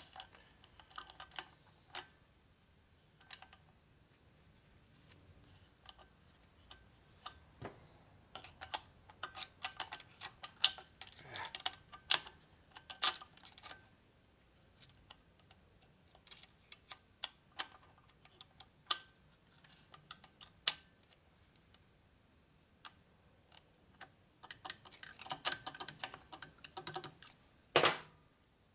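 Irregular small clicks and taps of metal parts and a hand tool being handled at the oil pump gear and shaft of a Harley Evolution engine case. The clicks come thicker about a third of the way in and again near the end, with one sharp click just before the end.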